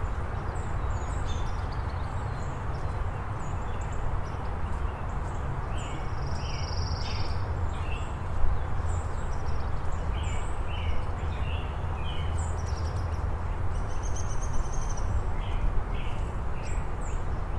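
Small birds chirping again and again in short high calls, with one longer, even whistle a little after the middle and a brief trill later on, over a steady low background rumble.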